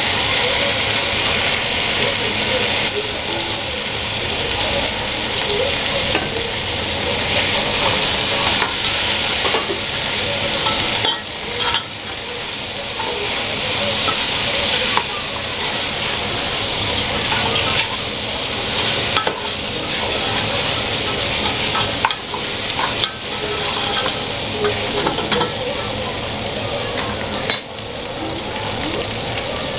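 Boiled mutton pieces sizzling in hot ghee with onions and cumin while being stirred in the pot: a steady frying hiss, with occasional knocks of the spoon against the pot. This is the mutton being roasted before the rice goes in.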